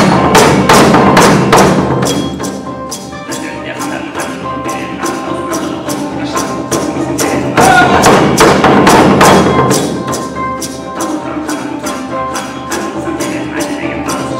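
Kazakh folk ensemble playing traditional music: plucked table zithers (zhetigen) over a steady beat of thumps and jingles, about two to three strokes a second. The music swells louder near the start and again about eight seconds in.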